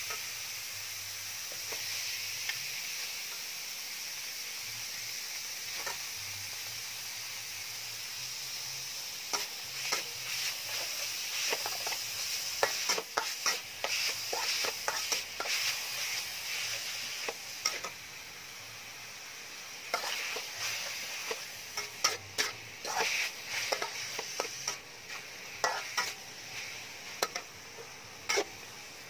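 Minced pork sizzling in a metal wok with a steady hiss while a metal spatula stirs it; sharp scrapes and clicks of the spatula against the pan come thick and fast from about nine seconds in.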